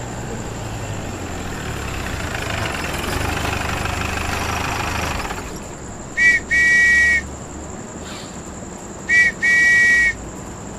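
Two-tone whistle blown twice, each time a short blast followed by a longer one, about three seconds apart. Before it, a rushing noise swells and fades out about five seconds in.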